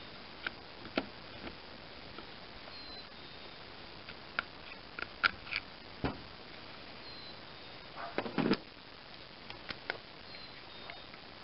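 Scattered light clicks and knocks of metal engine parts being handled as a carburetor is fitted onto its intake manifold, with a cluster of knocks about eight seconds in.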